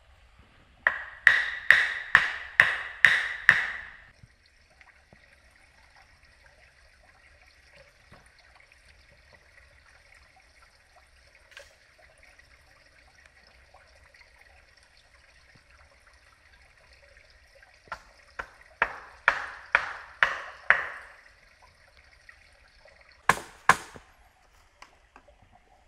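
Three bursts of sharp, ringing blows from a hand tool striking, a little over two a second: about seven, a long pause, about seven more, then two near the end.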